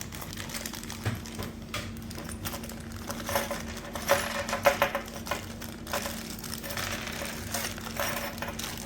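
Small metal accessories from a hinge-jig kit clinking and rattling as they are handled: many light clicks, with a busier run of brighter, briefly ringing clinks about three to five seconds in.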